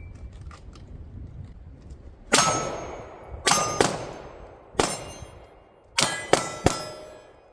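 Pistol shots fired at steel plates, seven in uneven groups over about four seconds, each hit followed by a short metallic ring from the steel.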